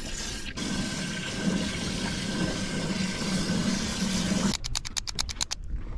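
A steady rushing noise that cuts off abruptly about four and a half seconds in, followed by a quick run of about ten sharp, evenly spaced clicks within a second.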